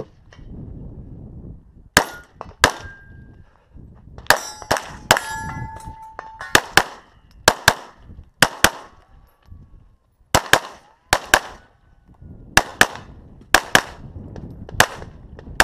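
About two seconds in, a semi-automatic pistol starts firing a rapid string of about twenty shots, mostly in quick pairs. Several hits on steel targets early in the string set the steel ringing with a steady tone.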